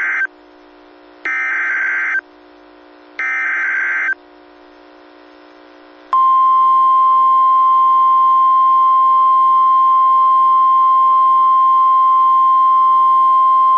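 NOAA Weather Radio Emergency Alert System signal: the tail of one screechy SAME data burst and two more, about a second each with short gaps, then from about six seconds in the steady 1050 Hz warning alarm tone. It marks the start of a new warning broadcast.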